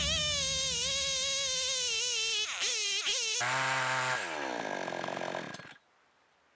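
HAIGE HG-F5200 52cc two-stroke chainsaw running under load in a chainsaw mill, its pitch wavering and dipping as it cuts. A few seconds in it drops to a steadier, lower note, then winds down to a stop.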